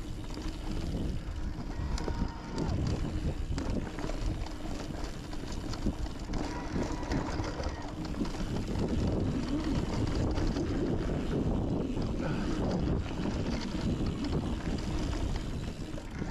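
Mountain bike rolling over a rough, rocky trail: tyre noise and bike rattle with many small knocks, and wind buffeting the microphone.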